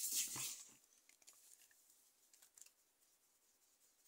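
Soft rubbing hiss of a small plasticine ball being rolled between the palms, stopping less than a second in, followed by a few faint light taps and then near quiet.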